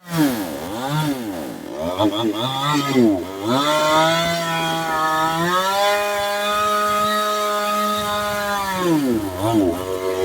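Chainsaw engine revved up and down several times, then held at high revs for about three seconds before dropping back and blipping again near the end.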